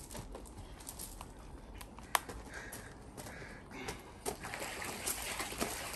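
Shuffling footsteps on gravel and light handling noises as a man lifts and carries a large malamute, with one sharp click about two seconds in.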